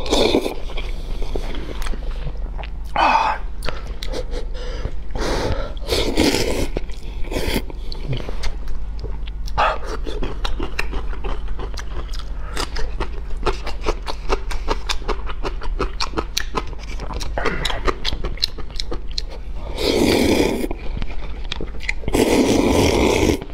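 Close-miked slurping of hot and sour glass noodles in long noisy slurps, near the start and twice near the end. In the middle it gives way to crunchy chewing of a pickle slice, heard as rapid small clicks.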